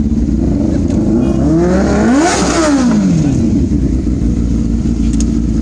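Motorcycle engines idling steadily, with one throttle rev that rises and falls in pitch about two seconds in.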